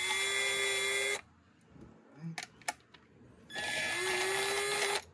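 Power drill-driver backing out screws in two runs of about a second and a half each. The motor's whine rises in pitch as it spins up, then holds steady until it stops suddenly.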